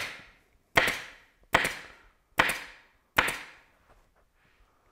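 Pneumatic staple gun firing staples through canvas into a wooden flat frame: four sharp cracks, about one every 0.8 seconds, then a pause near the end.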